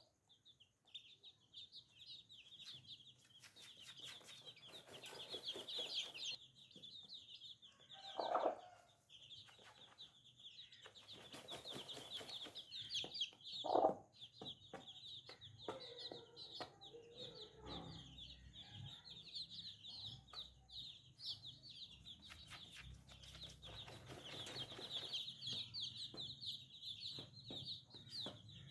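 Baby chicks peeping in a rapid, continuous high-pitched chorus. Two louder, lower calls stand out, about eight and fourteen seconds in, and there are several bursts of rustling.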